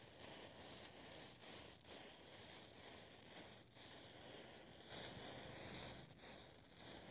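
Faint hissing crackle of a chain of standing matchsticks flaring one after another as the flame runs along the line, a little louder about five seconds in.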